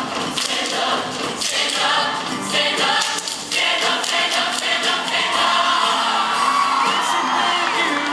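A high school show choir singing in full voice with instrumental accompaniment.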